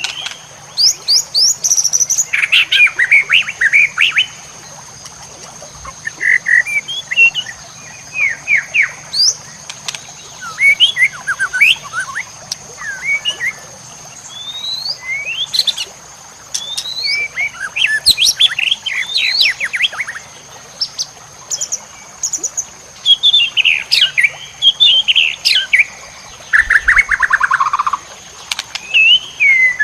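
Recorded songbird song of the kind used as training material for white-rumped shamas: a fast, varied string of chirps, whistled glides and rapid trills. Near the end comes a falling trill. A faint steady high tone runs underneath.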